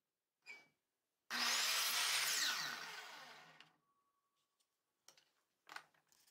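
Ryobi sliding miter saw cutting a half-lap notch in a small piece of wood. It starts suddenly at full loudness, its motor whine rising as it gets up to speed, then the whine falls as the blade winds down over about two seconds. A few light clicks come before and after the cut.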